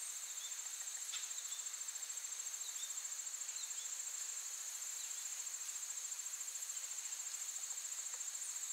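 Insects trilling: a steady, high-pitched, finely pulsing chirr, with a few faint short chirps now and then.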